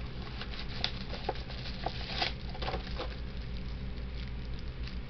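Plastic wrapping on a pack of Chinatown Thunder Strings firecrackers being handled and opened: scattered crinkles and rustles, thickest in the first three seconds, then sparser.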